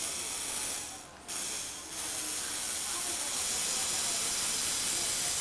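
Small Lego Technic electric motor and its plastic gear train running with a steady high hiss, tilting the transporter's deck upward. It stops briefly about a second in, starts again, pauses for a moment just before two seconds, then runs on steadily.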